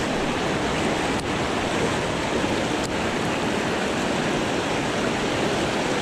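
Shallow stream rapids rushing over rocks: a steady, even rush of water close to the microphone.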